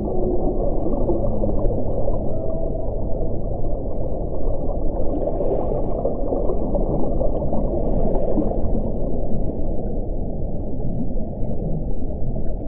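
Underwater recording of whale sounds: a dense, steady low rumble below about 1 kHz, with a few faint moaning tones in the first three seconds.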